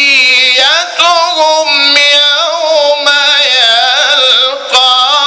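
Male Quran reciter's voice in melodic mujawwad recitation, drawing out one long, ornamented phrase whose pitch winds up and down over held notes.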